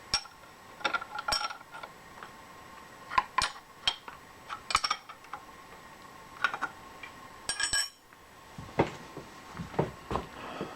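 Metal tools and parts being handled in a machine shop: scattered clinks and taps, with a few duller knocks near the end, over a faint steady whine.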